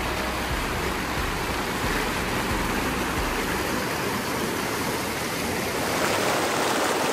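Fast mountain creek rushing and splashing over boulders in whitewater, a steady rush of water that grows a little louder near the end.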